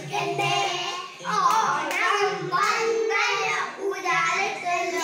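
Small children singing an Onakkali (Onam folk-dance) song in Malayalam, with a few hand claps.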